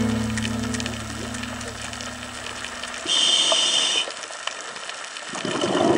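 The end of a song fades out, leaving the underwater sound of a scuba diver breathing through a regulator. About three seconds in there is a one-second hissing inhalation, and near the end a gush of exhaled bubbles swells up, over scattered faint clicks.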